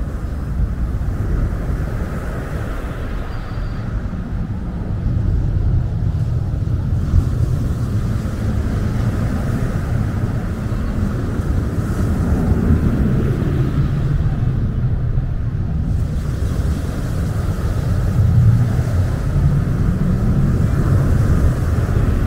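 Small waves breaking and washing over a pebble beach, over a steady deep rumble, getting louder about four seconds in.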